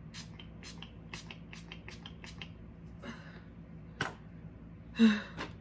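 Pump-spray bottle of facial mist, a Mario Badescu spray, spritzed rapidly at the face: a quick run of short hissing sprays, about four a second, for the first two and a half seconds. A sharp click follows about four seconds in, and a louder short burst of noise a second later.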